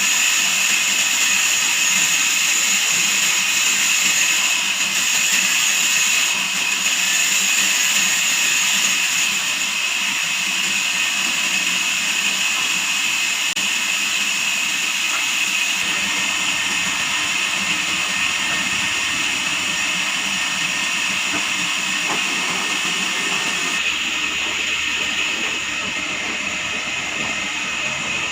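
Band sawmill running: a steady high whine over a hiss.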